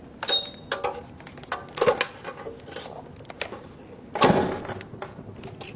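Light clicks and clatter of charging cables and their connectors being handled, with a louder scrape or rustle about four seconds in.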